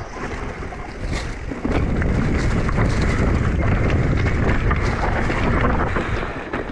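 Wind buffeting the microphone of a camera on a mountain bike descending a rocky dirt trail, with the bike clattering and knocking over rocks and bumps. It grows louder a little under two seconds in.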